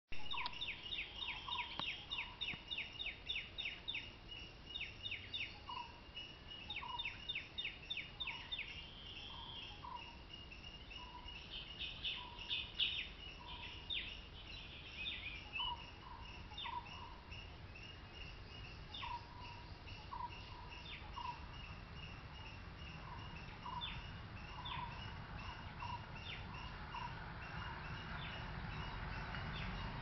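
Wild birds calling: rapid trains of short, sharp, high chirps, about three or four a second for the first eight seconds or so and more spaced out after that, with shorter lower notes recurring alongside.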